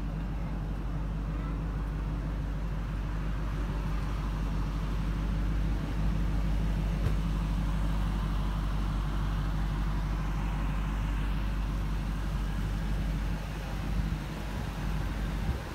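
Supercharged 5.4-litre V8 of a 2000 Ford F-150 SVT Lightning idling steadily. It grows a little louder about six seconds in.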